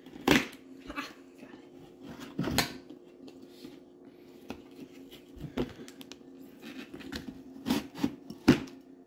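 A handful of sharp clicks and knocks at irregular intervals, as of small objects being handled, over a steady low hum.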